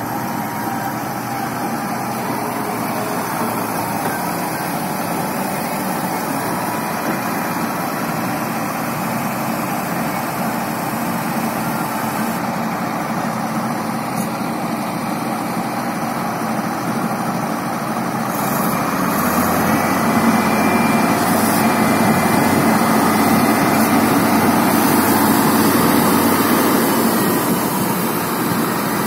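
Balkar Grain Master combine harvester's diesel engine running steadily with the machine's working noise. About two-thirds of the way through it grows louder and deeper, as the rear straw tank is tipped up to unload its straw.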